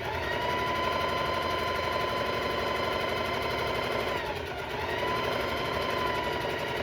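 Electric sewing machine running at a steady speed, stitching a seam. It slows briefly about four seconds in, its whine dropping, then speeds back up.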